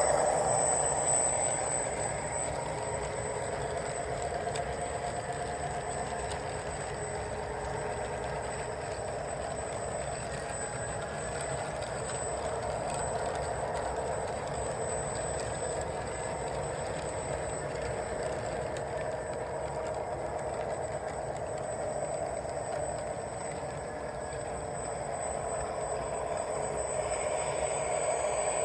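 3D-printed model train running along its track with a steady motor hum, dipping slightly past the middle and growing louder near the end.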